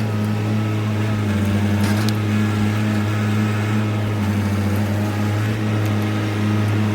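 Diesel engine of heavy land-clearing equipment running steadily at a constant speed, with a few faint clicks over it.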